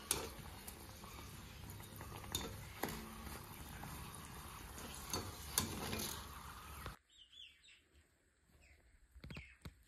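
A puri deep-frying in hot oil in a kadai, a steady sizzle with a few clicks of a wire spider strainer against the pan. About seven seconds in, the sound cuts to a much quieter background with birds chirping.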